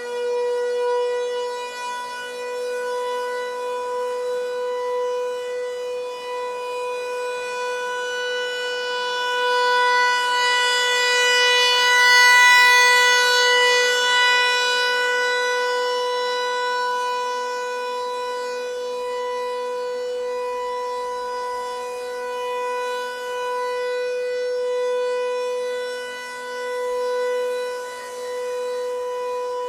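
Federal Signal 508-128 rotating warning siren sounding a steady full-alert tone at one held pitch, loud and rich in overtones. It swells and fades as the rotating head sweeps past, loudest about twelve seconds in.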